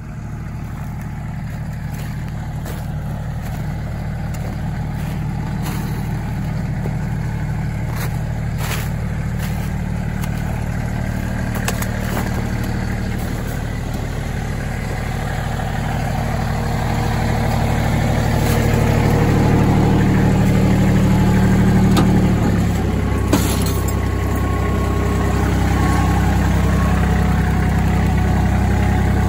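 Kubota L3400 compact tractor's three-cylinder diesel engine running steadily, growing gradually louder, with a change in engine note about three-quarters of the way through. A few faint knocks along the way.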